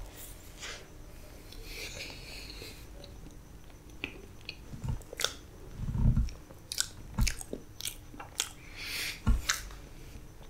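Close-miked mouth sounds of a person biting and chewing a mouthful of soft black forest cake: wet smacks and small clicks, with a few low thumps about halfway through and near the end.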